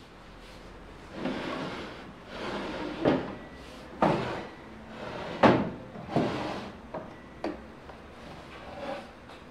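Wooden cabinet drawers being pulled open and pushed shut, wood sliding with several sharp knocks, the loudest about halfway through. A hand rummages through papers inside.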